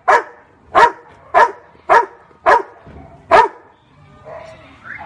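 Yellow Labrador barking on cue six times in a row, about two barks a second, counting out a number. After the sixth bark the barking stops.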